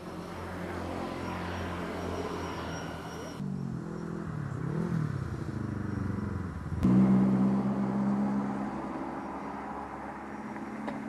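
Motor vehicle engines on a road, in three edited stretches: a steady engine hum, then an engine whose pitch rises and falls as it goes by, then, after a sudden cut about seven seconds in, a louder steady engine hum.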